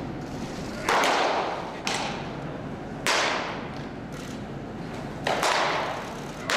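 Baseballs smacking into catchers' mitts in an indoor bullpen: five or six sharp pops about a second apart, each ringing on in the large hall.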